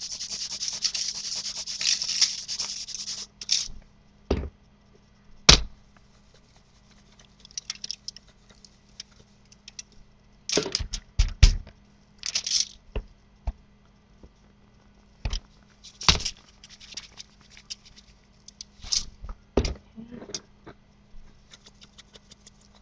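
Seasoning shaken out over raw pork steaks, a dense hiss of falling granules that stops about three seconds in. It is followed by scattered taps, knocks and short rubbing swishes as hands press the seasoning into the meat in the pan.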